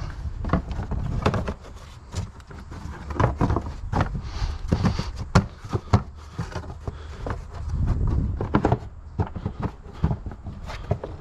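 Plastic engine cover of a 2018 VW Tiguan being set in place and pressed onto its mounting clips: irregular plastic knocks and clicks, some sharp.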